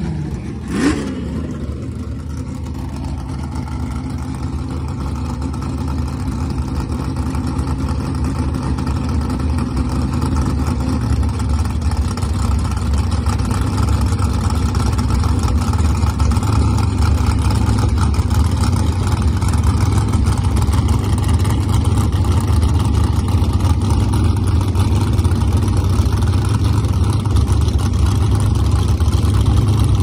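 Fox-body Ford Mustang drag car's engine idling steadily, getting gradually louder, after one quick blip of the throttle about a second in.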